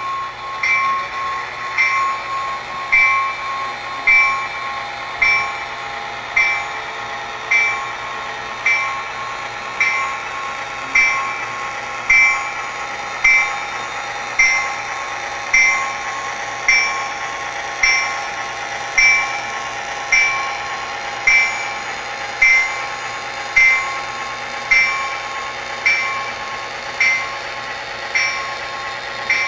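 O scale model trains running on a layout: a short sharp click repeats very evenly about once a second over a steady hum.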